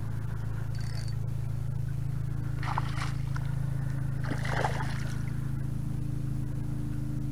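A hooked trout thrashing and splashing at the water's surface in two short bursts, about three seconds in and again about four and a half seconds in, over a steady low hum.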